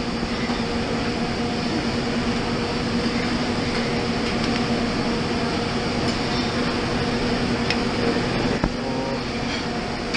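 Steady hum and air noise of a busy buffet hall's ventilation, with a couple of sharp clicks near the end from metal serving tongs knocking against the pans and plate.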